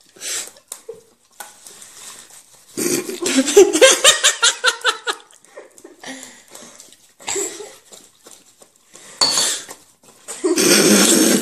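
A metal spoon clinking and scraping against a ceramic mug and a small plate. A loud stretch of laughter comes about three seconds in, and voices start again near the end.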